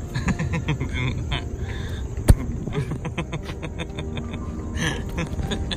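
Handling noise on a handheld phone microphone: a jumble of clicks and rustling over a low rumble, with one sharp knock about two seconds in.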